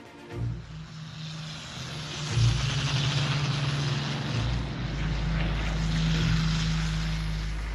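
Propeller aircraft's piston engine running, getting louder over the first few seconds and then holding steady.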